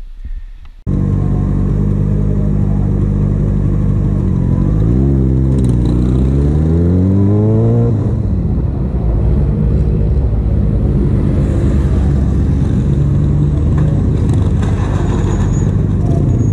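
Yamaha XJ6's inline-four engine running under the rider, starting abruptly about a second in. Its pitch climbs for about three seconds as it accelerates, drops suddenly at a gear change, then holds steady.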